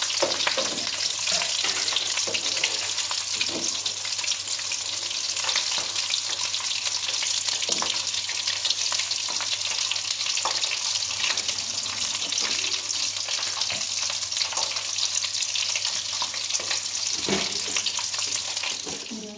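Potato cheese balls frying in hot oil in a wok: a steady crackling sizzle, with a few light knocks of a slotted metal spatula against the pan.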